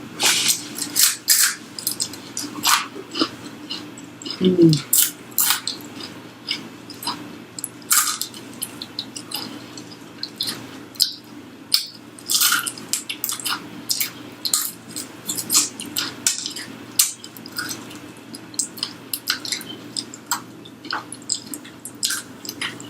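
Close-miked chewing of crispy fried chicken: irregular wet crunches and mouth clicks from biting and chewing the breading.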